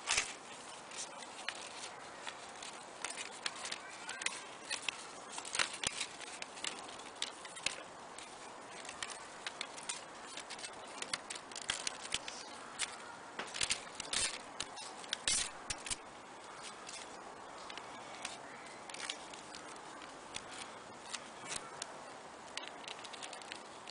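Irregular light clicks and taps, often several a second and thinning out in the last few seconds, over a faint steady hiss.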